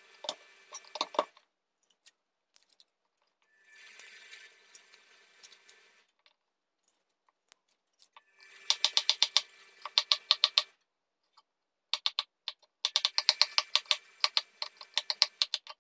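Chef's knife chopping garlic on a wooden cutting board: two quick runs of sharp knife strikes, one a little past the middle and a longer one near the end. Before them come quieter scrapes and clicks of the knife and board as the cloves are handled and peeled.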